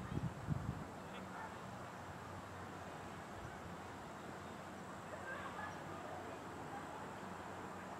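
Faint outdoor ambience over an open field, with a few short low thumps in the first second and scattered faint chirps about five seconds in.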